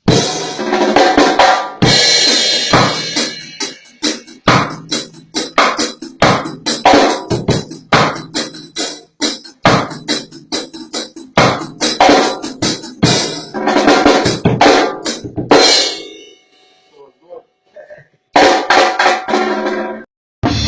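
Drum kit played in reggae one-drop style: snare and rimshot hits with bass drum in quick fills. It stops briefly about three-quarters of the way through, then starts again.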